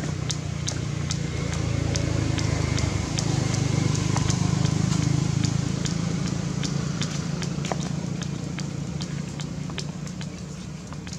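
Engine of a passing motor vehicle: a steady low hum that swells to its loudest about halfway through, then fades. Light ticks a couple of times a second run alongside it.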